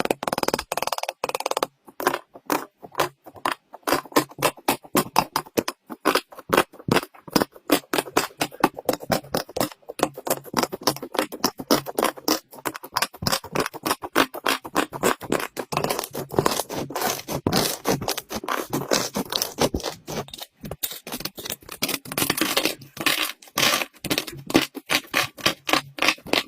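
Slime being squished and poked by hand, giving a rapid, irregular run of sticky clicks and pops.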